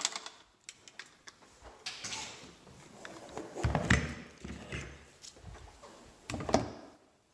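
A removed GE refrigerator ice maker being handled: scattered plastic knocks and clatter, with a louder thump about four seconds in and a sharp knock near the end, as it is tipped to dump out water left inside.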